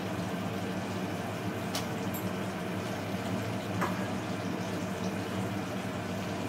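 Chicken curry gravy simmering in a pan, a steady bubbling, with two small clicks about two and four seconds in.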